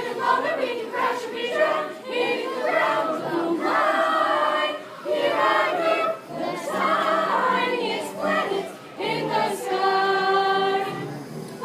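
A group of voices singing together in chorus, ending on a long held note near the end.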